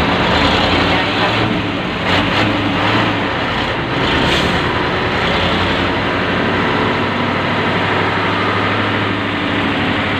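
Amphibian truck's engine running as the truck drives along, a steady engine drone with road noise, heard from inside the open cab.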